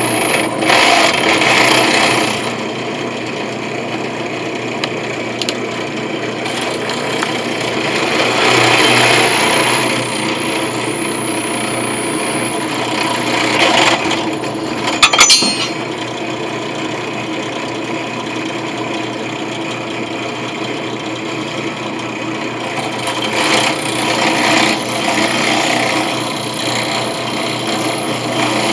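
Electric drill running and grinding its bit into a brass coin, the cutting noise swelling and easing in several stretches. A sharp click about 15 seconds in is the loudest moment.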